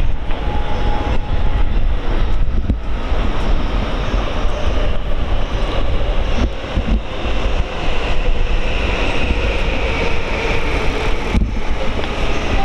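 Loud outdoor street noise: a steady low rumble with a hiss over it and no clear single event.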